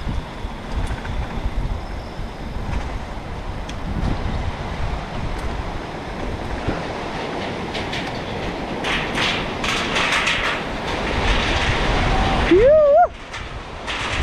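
Bicycle rolling over a rough dirt trail: a steady rumble with rattling and clatter that grows from about halfway. A brief rising shout sounds near the end.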